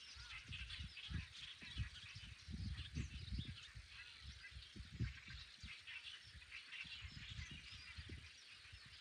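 A flock of waterfowl calling in a dense, continuous chatter of many small calls, with irregular low rumbling underneath.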